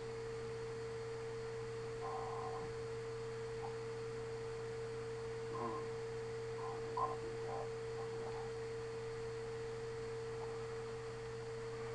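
A steady electrical hum with a clear, unchanging tone above it, as from the recording chain, and a few faint, brief sounds now and then.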